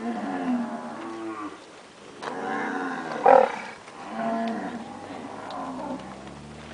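Nelore cattle mooing, several calls one after another and overlapping, the loudest a short call a little past the middle.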